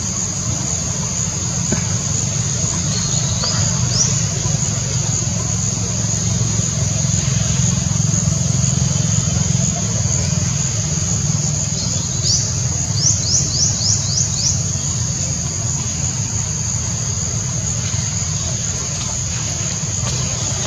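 Steady high-pitched drone of forest insects, such as crickets or cicadas, over a low rumble. A little past the middle, a quick run of about six short rising chirps cuts in.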